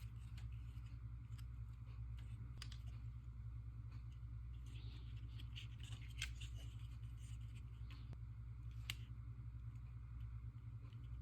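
Faint clicks and scrapes of small plastic toy figures being handled, over a steady low hum.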